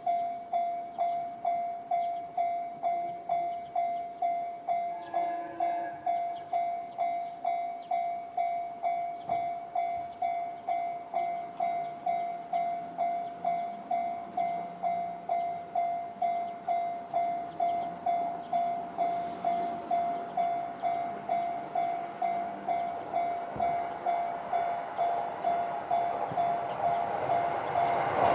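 Japanese railway level-crossing alarm sounding the JR standard electronic bell, a single ding repeated steadily about twice a second. Near the end the rumble of the approaching train rises underneath it.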